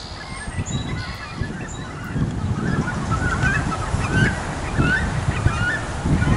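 Cormorants at the nest calling with bills raised: a run of short, high squeaky calls, about two a second, over a rough low rumble, growing louder after about two seconds.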